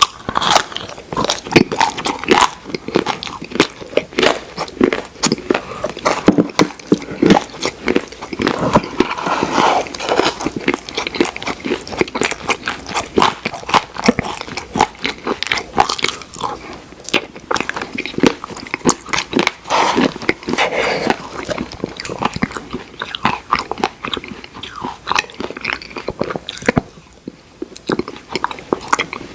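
Close-miked eating of Oreo ice cream: steady chewing and biting, with many small crunches from the cookie pieces.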